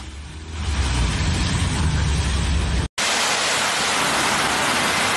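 Water jetting up from a flooded street in heavy rain: a steady rush over a deep rumble. About three seconds in it cuts abruptly to a brighter, hissing rush of floodwater.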